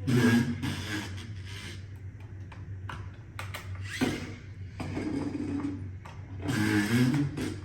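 Roomba drive wheel module's gearbox whirring as the wheel is spun by hand, in three spells, the pitch wavering with its speed.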